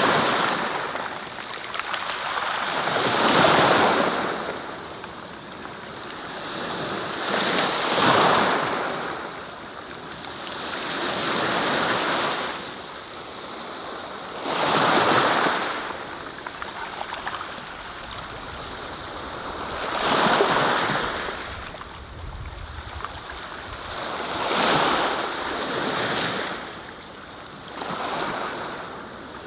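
Sea waves washing in: a rushing surf noise that swells and fades about every four to five seconds.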